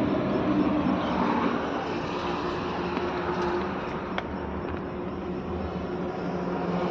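BharatBenz truck's diesel engine idling steadily, heard from inside the cab, with one faint click about four seconds in.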